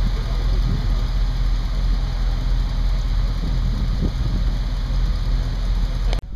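Car engines idling at close range, a steady low hum that cuts off suddenly near the end.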